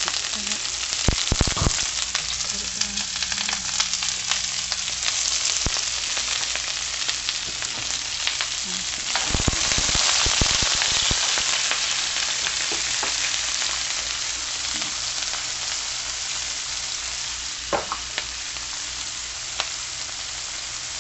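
Diced onions frying in hot oil in a skillet: a steady sizzle, with a few sharp knocks near the start and again about nine seconds in, and the sizzle swelling slightly around ten seconds in.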